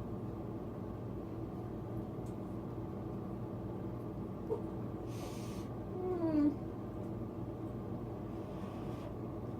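A cat gives a short meow about six seconds in, just after a brief rustling hiss, over the steady hum of an electric fan.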